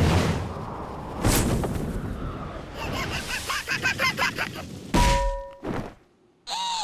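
Cartoon sound effects: a rush of air during a glide, with a run of rapid clicks in the middle. About five seconds in comes a loud thud as a body slams into a palm tree trunk, with a ringing tone after it, then a brief silence and a short sliding sound near the end.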